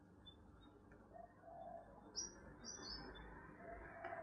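Faint bird chirps, a few short high chirps about two to three seconds in, with low cooing calls of a dove, over quiet room tone.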